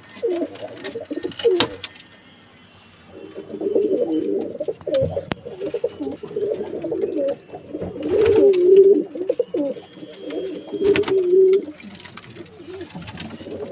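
Domestic pigeons of the Jammu breed cooing in their loft, in runs of low, wavering coos. The coos pause for about a second, two seconds in, and a few sharp clicks fall between them.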